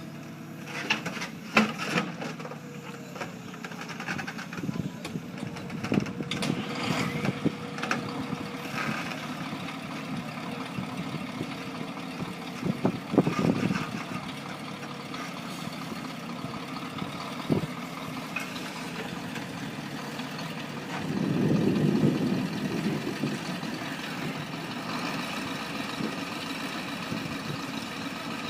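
Heavy construction machine's engine running, with scattered sharp clanks and knocks and a louder swell about two-thirds of the way through.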